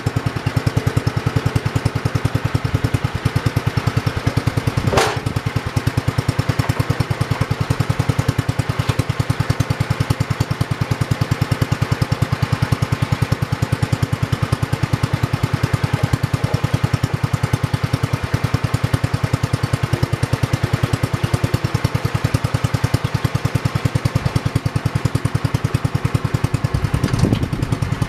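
1968 John Deere 110 lawn tractor's single-cylinder engine running steadily, its firing pulses evenly spaced, with one short sharp sound about five seconds in.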